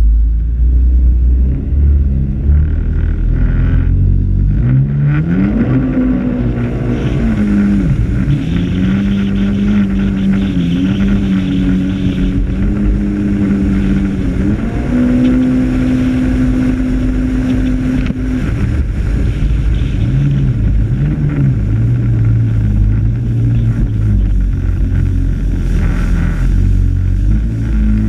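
Jet ski engine revving up about five seconds in and then running at high throttle at a steady pitch, with a few brief dips. About two-thirds of the way through it eases back to a lower pitch, and it starts climbing again near the end.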